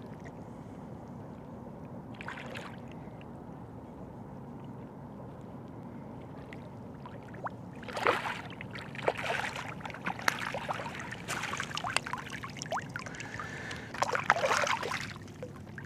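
Shallow bay water with a steady low wash, then, about eight seconds in, several seconds of splashing and sloshing in the water, loudest at the start and again near the end.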